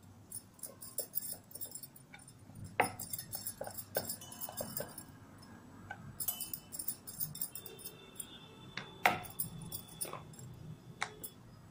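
Puri dough being rolled out with a wooden rolling pin on a wooden board: scattered knocks of the pin on the board, the loudest about three seconds and nine seconds in, along with the light tinkling clinks of bangles on the rolling hand.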